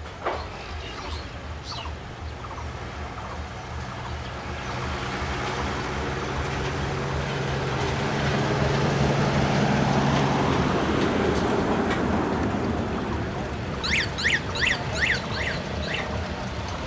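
A low, steady engine drone builds up and then eases off. Near the end a bird calls in a quick run of about eight sharp, high chirps.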